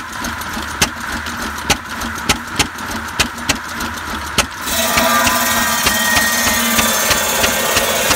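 Goold Shapley & Muir buzz saw belt-driven by a 6 hp Fairbanks Morse stationary engine: the engine's sharp firing beats come at uneven intervals over the spinning blade. About four and a half seconds in, the blade bites into a log and a loud, steady cutting noise takes over, the engine beats still going through it.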